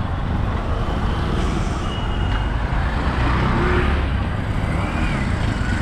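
Steady road traffic noise of engines and tyres, with a brief high beep about two seconds in.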